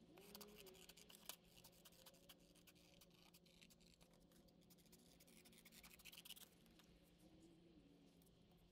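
Very faint scratching with many light clicks, stopping about two-thirds of the way in; near silence after that.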